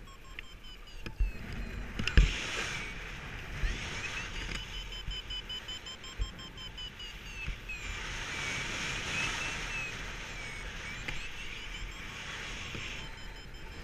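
A paragliding variometer sounds a high electronic tone that slides slowly up and down in pitch, following the wing's rate of climb. Wind rushes past the microphone throughout and swells louder at times, with a couple of dull bumps about two seconds in.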